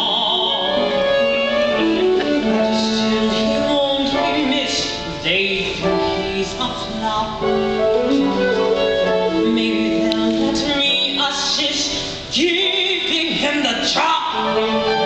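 Music from a stage musical's score: many instruments holding notes together in changing chords.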